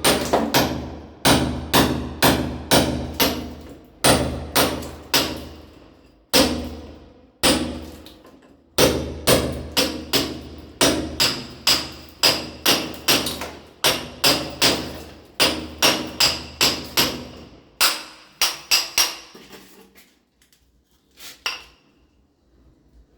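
Hammer blows on a steel chisel, repeated sharp ringing strikes at about two a second with short pauses between runs. The hammering stops a few seconds before the end, followed by a couple of faint knocks.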